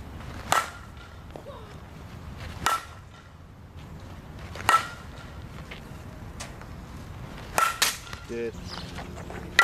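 Fastpitch softball bat striking tossed balls about every two seconds, five hits in all, each a sharp crack with a short ringing ping.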